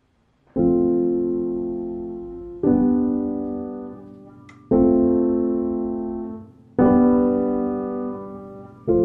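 Background piano music: slow chords struck about every two seconds, each one fading away before the next.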